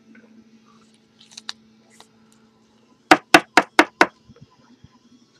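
A quick run of sharp knocks, about five a second for about a second, a little past halfway, after a few faint light clicks.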